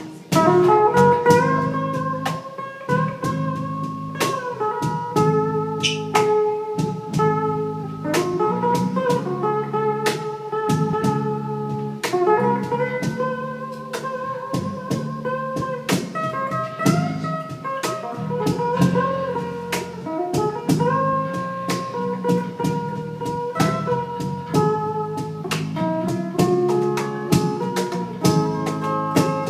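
Live band playing an instrumental break in a slow blues song: a lead guitar melody with held, bending notes over drums and a low accompaniment.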